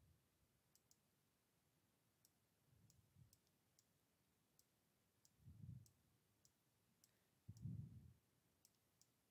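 Faint computer mouse clicks, about a dozen spaced irregularly, over near-silent room tone, with a few soft low thuds, the loudest two in the second half.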